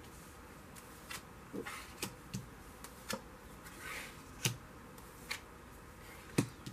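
Tarot cards being dealt from the deck and laid down on a cloth-covered table: scattered soft taps and slides of card on cloth, irregularly spaced, the sharpest one near the end.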